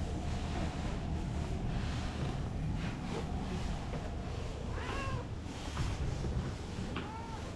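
A cat meowing, two clear rising-and-falling meows in the second half, over a steady low rumble.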